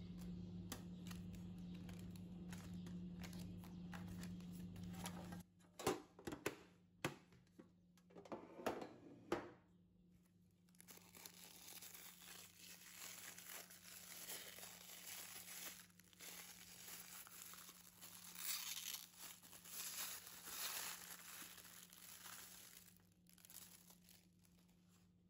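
Paper and plastic stationery packaging handled close up: first a run of sharp crinkles and clicks, then a long stretch of soft tearing and rustling that swells and falls. A low steady hum sits under the first five seconds.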